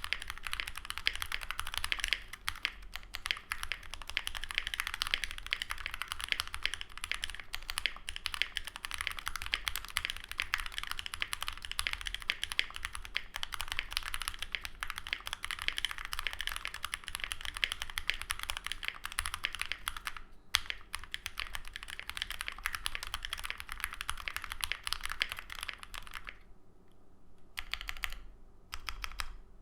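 Fast, continuous typing on a CreateKeebs Thera 75 mechanical keyboard with lubed 43 Studio OPBlack linear switches on a POM plate and GMK keycaps. The typing breaks off briefly about two-thirds of the way through, and near the end thins to a few separate keystrokes.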